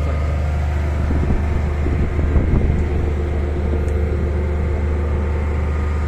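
Hydraulic static pile driver's engine and hydraulic power pack running steadily, a loud low drone with a constant hum. A few brief clattering noises come through about two seconds in.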